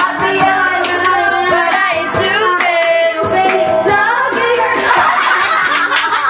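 A woman singing into a karaoke microphone over backing music. About four and a half seconds in, the singing gives way to cheering and clapping from the people in the room.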